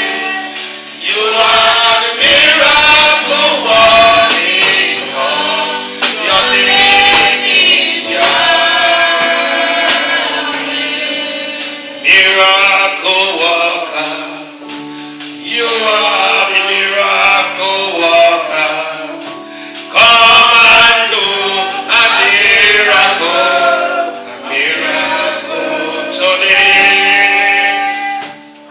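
Gospel worship music: a male voice singing with a choir, over a steady beat with a tambourine.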